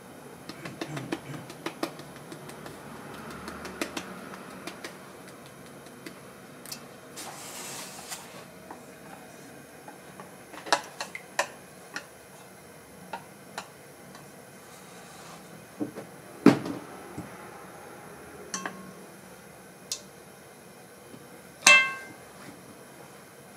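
Kitchen prep clatter: scattered taps and knocks of utensils against metal trays and bowls, with a brief hiss about a third of the way in. Near the end a louder metal clank rings briefly.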